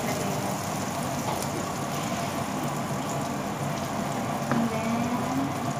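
Butter sizzling steadily in a hot nonstick frying pan, heating before raw shrimp go in, over a low steady hum.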